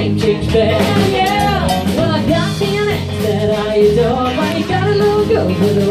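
Live band performing a song: women singing into microphones over drum kit, electric guitar and bass guitar, with a steady beat.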